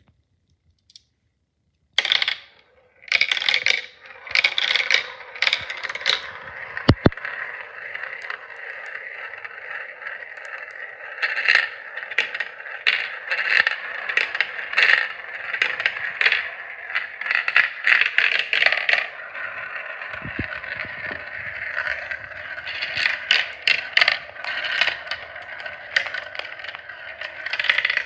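Glass marbles rolling through a translucent plastic marble run's tubes, spirals and funnels: a continuous rolling rattle full of clicks and clacks as marbles drop and strike the plastic. It starts suddenly about two seconds in.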